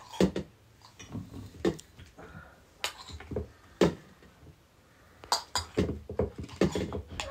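Metal spoons clinking and scraping against steel serving bowls and plates as curry is served out, a scattering of separate sharp clinks.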